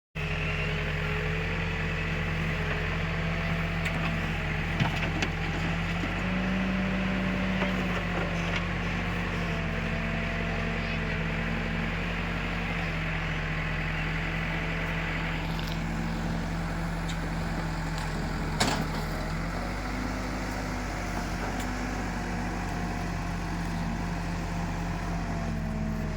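Diesel engine of an Escorts Digmax backhoe loader running at work, its pitch shifting up and down a little as it takes load. Two sharp knocks stand out, about five seconds in and again about nineteen seconds in.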